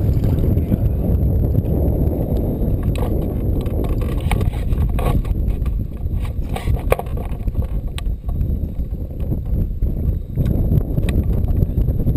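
Steady low rumble of wind buffeting the mast-mounted GoPro's microphone, with a few scattered sharp clicks and knocks from handling the rod and gear in the middle of the stretch.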